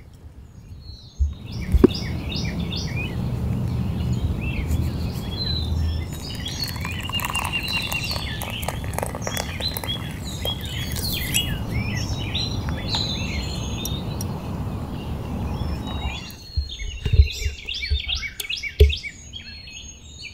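Songbirds chirping all the way through, over a steady rushing noise that cuts in about a second in and stops sharply about sixteen seconds in. A couple of soft thumps follow near the end.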